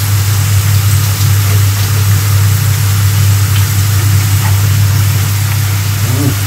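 A steady low electrical hum with a hiss over it, from kitchen appliances running while potato fries cook in hot oil.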